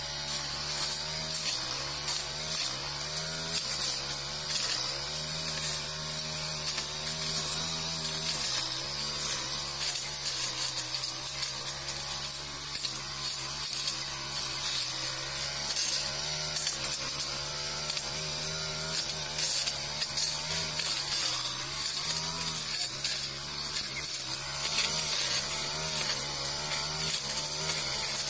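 Backpack brush cutter with a Honda GX four-stroke engine running at high revs, its metal blade swishing and chopping through dense weeds and brush. The engine note dips slightly now and then as the blade takes load.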